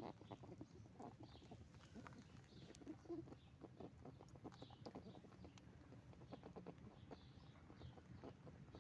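Pet rabbit making soft, short honking grunts amid many quick clicks, faint throughout. In rabbits this honking is a sign of happy excitement, here around food.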